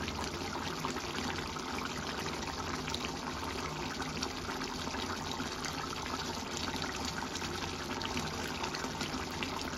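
Fish curry simmering in a pan: a steady bubbling with many small pops.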